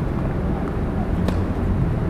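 Steady low background rumble of an outdoor court, with one faint click about a second in.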